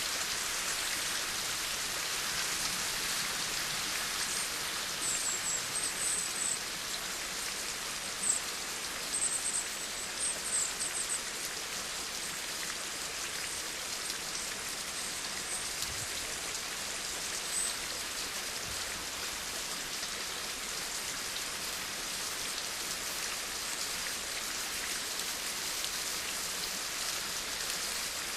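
Steady rain falling, an even hiss of many drops. Between about five and eleven seconds in, a few brief high-pitched chirps or ticks sound over it.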